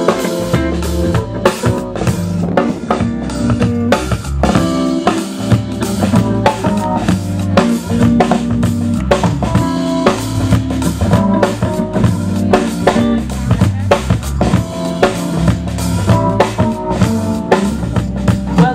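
Live band playing an upbeat funk groove: drum kit with steady snare and kick strokes over a bass line and pitched instrument parts, with no singing.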